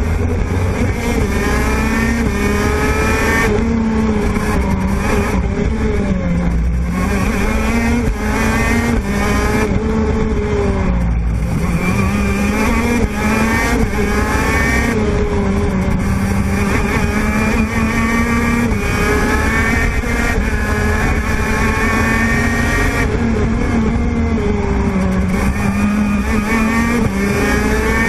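TM 125 cc two-stroke kart engine at racing speed, heard from the driver's seat: its pitch climbs again and again and drops back as the kart accelerates and slows through the lap.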